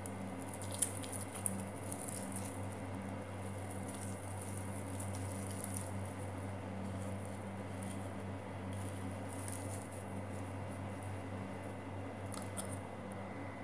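Boiled potatoes being crushed and mixed by hand on a plate with chopped onion and coriander leaves: faint soft squishing and pattering over a steady low hum, with a couple of sharp clicks about a second in.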